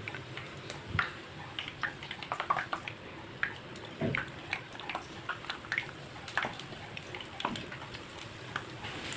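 Gram-flour-battered, crumb-coated bread sandwiches sizzling in hot oil in a shallow frying pan as they are slid in one at a time, with irregular crackles and pops.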